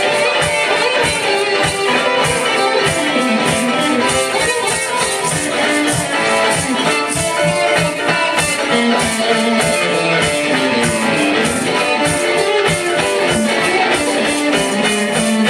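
Live rock band playing: electric guitar over drums keeping a steady beat.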